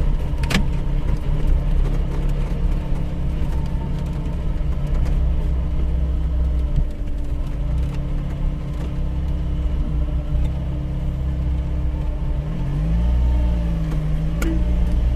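Vehicle engine idling steadily with a low rumble in slow, congested traffic. Its pitch dips and rises again about twelve seconds in, and there are two sharp clicks, one near the start and one near the end.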